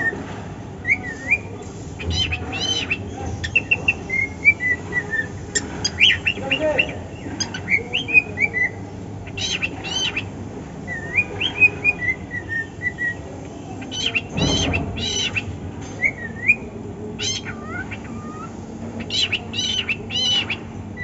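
Male cockatiel whistling and chattering: strings of short, sliding whistled notes, some falling in little runs, mixed with frequent short harsh squawky calls.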